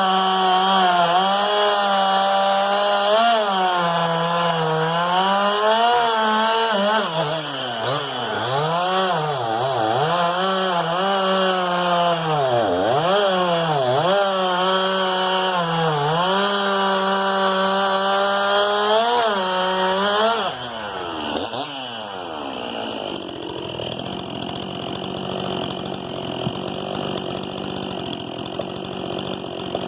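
Stihl MS 261 C-M two-stroke chainsaw running at high revs while cutting through a large log, its pitch sagging again and again as the chain bites into the wood and recovering between strokes. About two-thirds of the way through, the saw comes off the throttle: the engine note falls away and it runs on more quietly.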